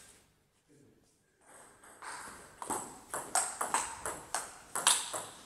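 Table tennis rally: the ball clicking off bats faced with Pryde 30 and Tuttle 55A rubbers and bouncing on the table in quick alternation. It starts about a second and a half in, and the strokes come faster toward the end.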